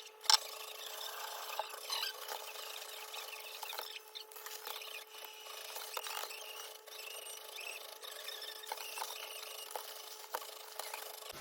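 Kitchen handling sounds during food preparation: continuous rubbing and scraping with scattered light clicks, and one sharp knock about a third of a second in.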